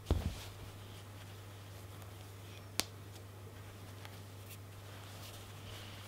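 Close-up handling of a knitted wool stuffed bunny: a soft thump at the very start, faint rustling and squeezing of the knitted fabric, and one sharp click about three seconds in, over a steady low hum.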